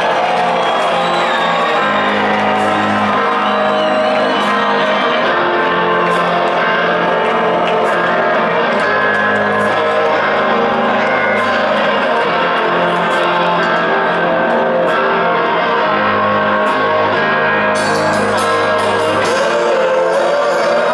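Live rock band playing loud in a large hall, with electric guitars, sustained bass notes and drums, heard from within the crowd as fans whoop and shout over the music.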